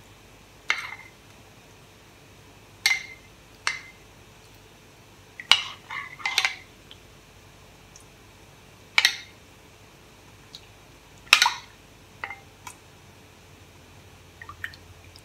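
Metal spoon clinking against a ceramic bowl while rice-flour batter is stirred: about a dozen short, sharp clinks, spaced unevenly.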